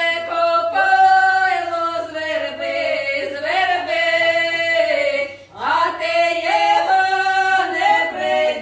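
A small group of women singing a Ukrainian folk song unaccompanied, in long held notes; the phrase breaks off about halfway through and starts again.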